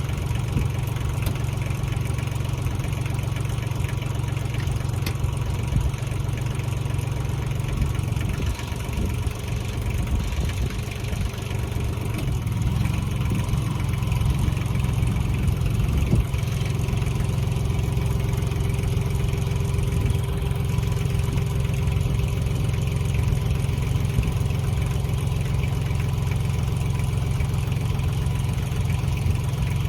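Tractor engine running steadily, its note shifting and unsettled for a few seconds about eight to thirteen seconds in before settling again.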